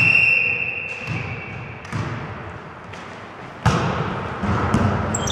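A referee's whistle blows one steady note for about a second, then a volleyball thumps on the gym floor or a hand several times. The loudest hit comes about three and a half seconds in, and each thump echoes around the sports hall.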